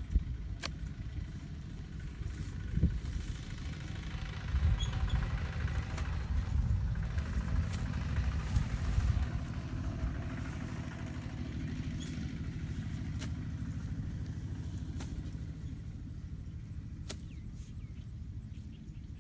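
A long-handled hoe chopping into wet earth and grass, giving a few scattered sharp knocks, over a steady low rumble that swells between about four and ten seconds in.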